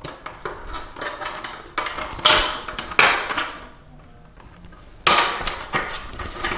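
Hard plastic rear shroud of a Permobil M3 power chair being handled and pressed into its rubber stoppers. Plastic rubs and scrapes, with a few sharp clicks and knocks.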